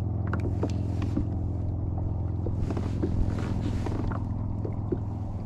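A boat's motor running with a steady low hum, with gusts of wind on the microphone and a few small clicks.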